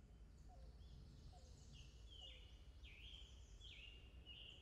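Faint outdoor ambience of birds calling, fading in. Over a softer repeated low chirp, a sharp call that drops steeply in pitch repeats every half second or so from about a second and a half in.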